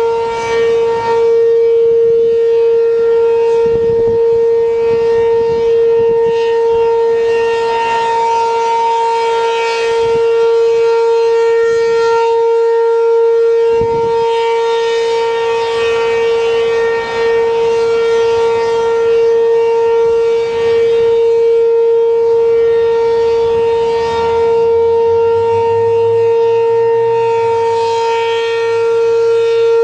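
ACA P-15 outdoor warning siren sounding the steady alert signal during a test: one held, unchanging pitch, loud throughout, its upper overtones swelling and fading every several seconds.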